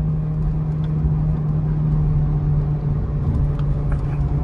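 Honda Civic Type R's turbocharged four-cylinder engine pulling steadily in third gear, a constant drone over tyre and road noise, heard from inside the sound-deadened cabin.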